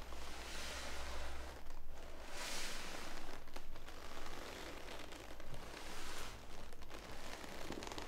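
Soft rustling in repeated swells every second or two, from a person moving about close by, with a low hum that stops about a second and a half in.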